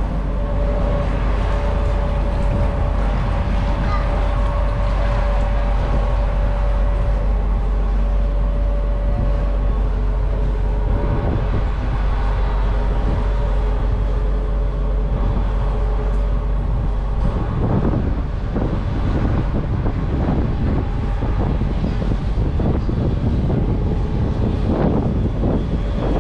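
Engine of a moored river cruise boat running with a steady low rumble and hum. From about two-thirds of the way through, wind buffets the microphone.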